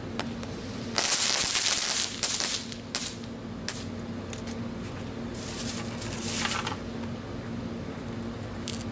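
Crackling ball firework going off: a dense run of sharp crackles starting about a second in and lasting over a second, a few scattered pops, then a second, shorter crackling burst past the middle.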